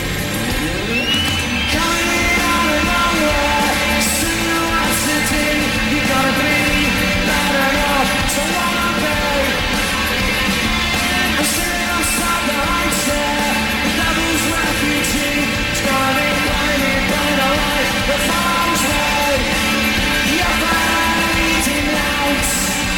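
Live rock band playing loud: distorted electric guitars, bass and drums, with a lead melody bending up and down in pitch over the top.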